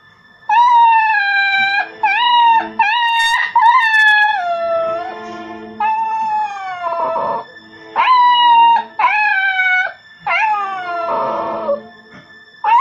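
Adult poodle howling in a series of about eight high, wavering cries with short breaks between them, several sliding down in pitch at the end. This is her crying for her absent owner, which the family hears as her calling the owner's name, "Lola".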